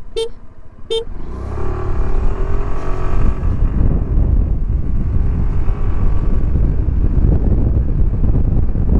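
Two short beeps, then the Suzuki Burgman Street 125 scooter's single-cylinder four-stroke engine pulls away at full throttle about a second and a half in. Its pitch rises for a couple of seconds, then holds while the road speed climbs, with wind noise on the microphone growing.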